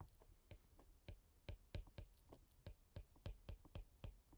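Faint, quick light clicks of a stylus tapping on a tablet screen during handwriting, several a second.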